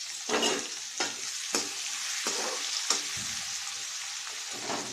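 Chopped onion and green chillies sizzling in hot mustard oil in a kadhai, with several scrapes of a stirring utensil against the pan as they are stirred.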